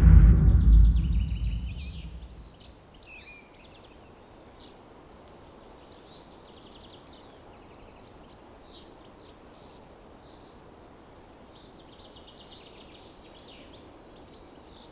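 A deep low rumble fades away over the first two seconds. Then comes quiet woodland ambience: birds chirping and twittering over a soft, steady hiss.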